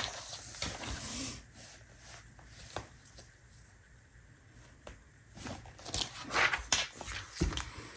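Paper planner being handled: soft rustling and rubbing of pages, quiet in the middle, with a run of louder rustles and light taps near the end.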